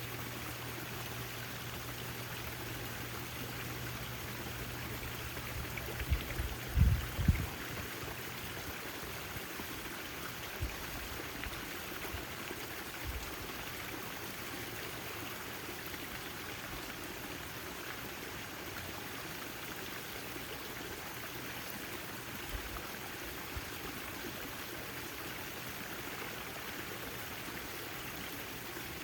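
Backyard fountain water splashing and trickling in a steady rush. A few low thumps about six to seven seconds in are louder than the water.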